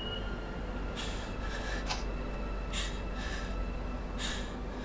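A woman sniffling while crying, with short sharp sniffs that come mostly in pairs, about three times, over a steady low hum.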